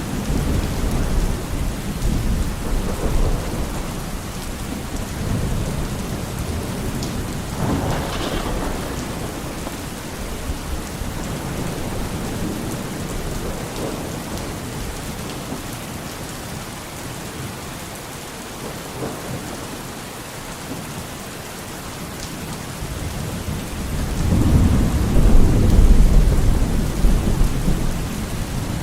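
Steady heavy rain with rumbles of thunder; a deep, louder rolling rumble builds near the end.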